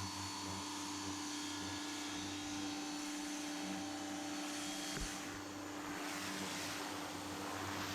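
A steady motor hum with a single short knock about five seconds in.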